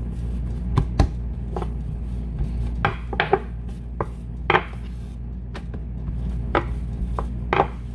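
A wooden rolling pin knocking and rolling on a wooden pastry board while hands pat and press bread dough flat: scattered sharp knocks, a few closely spaced near the middle, over a steady low hum.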